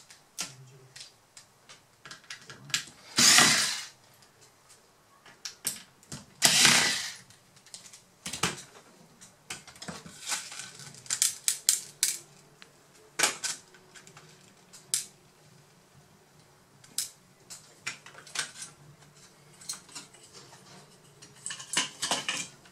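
Cordless electric screwdriver whirring in two short runs a few seconds apart, undoing the heatsink screws on a laptop motherboard. Then scattered small clicks and taps as screws and the heatsink are handled.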